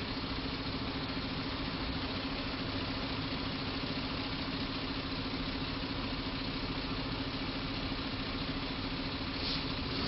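Steady street-traffic noise with a constant engine hum, unchanging throughout and swelling slightly near the end.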